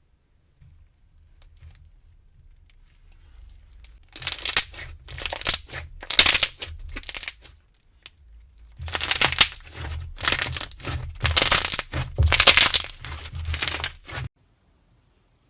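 Close-miked crunching and crackling in two long runs of many quick strokes, one from about four to seven and a half seconds in and one from about nine to fourteen seconds in, with a low rumble of handling underneath.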